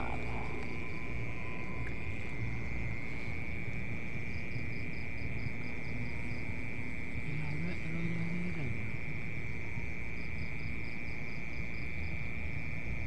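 Crickets trilling steadily in one continuous high-pitched drone, with a low rumble underneath.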